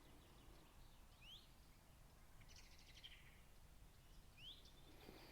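Faint wild birds calling in near silence: a short rising whistle about a second in, a brief rapid trill near the middle, and another rising whistle about four and a half seconds in.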